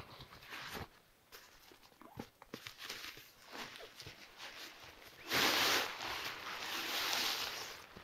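Fabric rustling as gear is unpacked from a backpack: short rustles and a few light knocks, then from about five seconds in a louder, longer rustle of nylon as a folded bird-photography hide is pulled out of its stuff sack.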